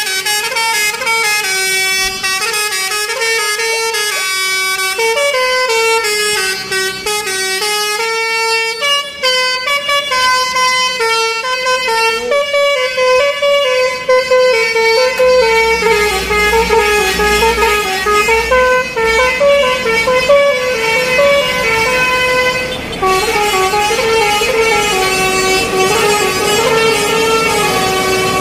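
Bus's telolet basuri multi-tone horn playing a long melody, quick notes stepping up and down without a break. A low rumble sits underneath for a while midway.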